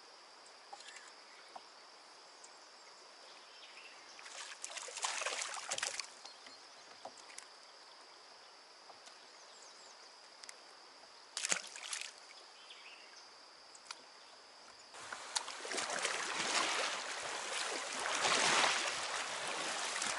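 Kayak on a flowing river: water sloshing, with two short splashes about a quarter and halfway through. About three-quarters through, a louder steady rush of moving water sets in. Under the first part runs a steady high-pitched insect drone.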